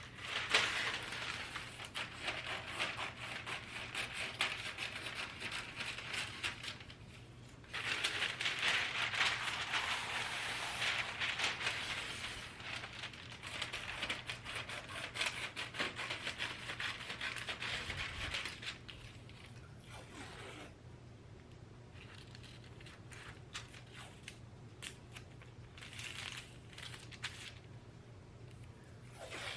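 Brown kraft paper crinkling and rustling as it is unrolled and cut with scissors, with a short lull about seven seconds in. After about eighteen seconds it drops to quieter, scattered rustles and ticks as the paper is smoothed flat.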